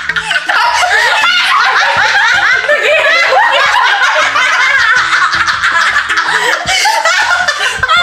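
Several women laughing hard at once, with high, wavering peals, over background music with a steady bass line.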